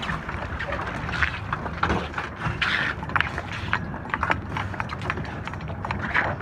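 Hand-cranked squid-jigging reels working on a boat's gunwale, giving irregular clacks and knocks over a steady low rumble.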